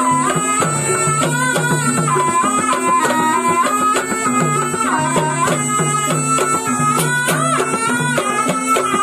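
Live Banyumas ebeg music: a slompret, the Javanese double-reed shawm, plays a wavering, ornamented melody over steady, busy percussion and repeating low notes.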